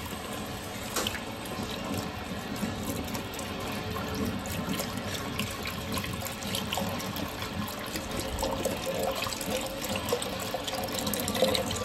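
Water running steadily into a kitchen sink, with scattered small clicks and clinks.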